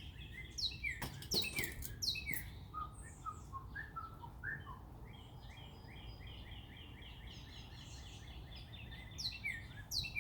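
Birds calling: a fast run of short repeated chirping notes, with sharp falling chirps over it, and a single click about a second in. A low rumble runs underneath.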